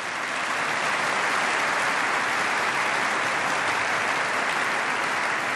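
Large audience applauding: dense, steady clapping from hundreds of people that swells up in the first half-second and then holds evenly.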